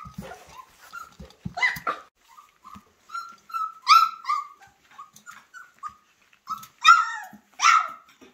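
Flat-coated retriever puppies, 24 days old, giving a string of short, high-pitched yips and little barks, about a dozen, the loudest three in the second half. Before them come a few scattered clicks and knocks.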